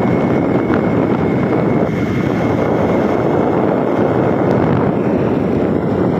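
Motorcycle riding along a road: the engine running steadily under heavy wind noise on the microphone, loud and unbroken.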